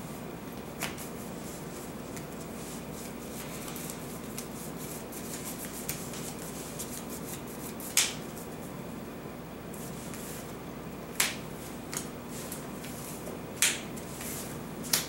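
Trading cards being set and slapped down on a table: a few sharp separate slaps, the loudest about eight seconds in and several more near the end, over a steady low room hum.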